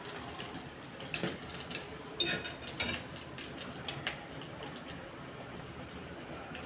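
French toast frying in oil in a frying pan, a faint steady sizzle, with a metal spatula clinking and scraping against the pan several times.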